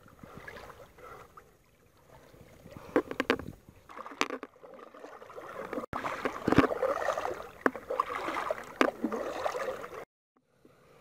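Water lapping and splashing around a kayak, with many small sharp splashes and drips. The sound cuts out briefly near the end.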